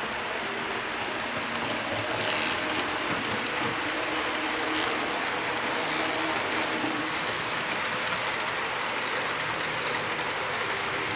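Model freight train rolling past on its track: a steady rushing of metal wheels on rails, with a couple of light clicks from the cars over the track.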